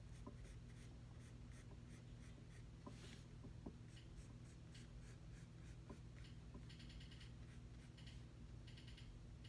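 Faint pencil strokes scratching on sketchbook paper as a head outline is drawn, with quick runs of short strokes near the end. A low steady hum sits underneath.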